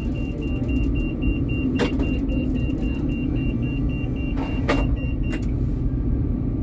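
Helsinki tram running: a steady low rumble with a few sharp clicks. A rapid, even beeping at one pitch, about four a second, runs over it and stops about five seconds in.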